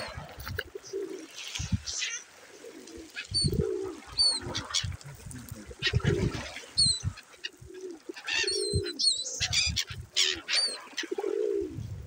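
A flock of gulls calling in short high cries over the feeding, with pigeons cooing in low repeated notes close by.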